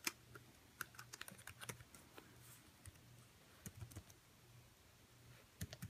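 Faint, irregular key taps of a slim WAWO Bluetooth keyboard for the iPad Air 2 being typed on: quick runs of keystrokes in the first couple of seconds, a few more later, with short pauses between.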